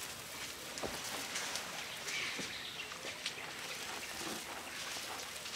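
An African elephant pushing into roadside undergrowth: leaves and brush rustling, with scattered soft cracks of twigs.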